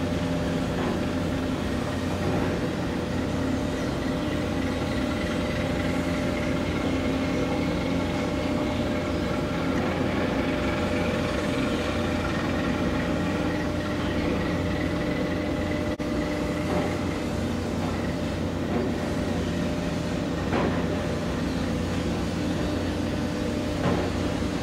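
Marine diesel engines running steadily: a low, even hum with several steady tones and a faint high whine over it, and a few light knocks.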